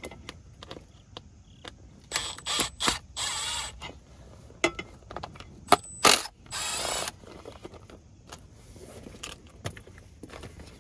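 Hand tools working loose the fasteners of an airbag trim piece: several short runs of fast ratchet-like clicking, with scattered knocks and taps in between.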